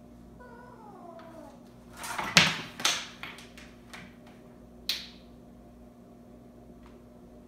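A Bengal kitten gives a short meow that falls in pitch. About two seconds in, slatted window blinds clatter and rattle for about a second and a half as the kitten yanks the blind cord it holds in its mouth, and one more sharp rattle follows about two and a half seconds later.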